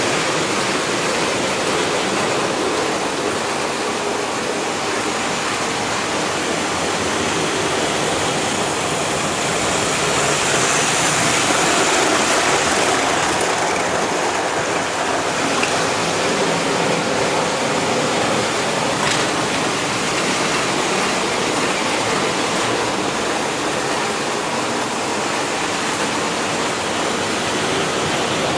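S-gauge model train running on the layout's track: a steady rolling rumble and hiss that swells briefly about a third of the way through.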